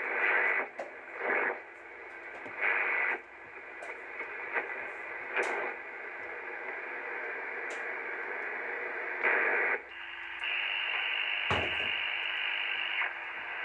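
Static hiss from an Icom IC-725 HF transceiver's speaker in single-sideband mode as the main tuning dial is turned across the bands, with short louder bursts of signal as the dial passes stations. From about ten seconds in a steadier signal with a low steady tone holds for about three seconds.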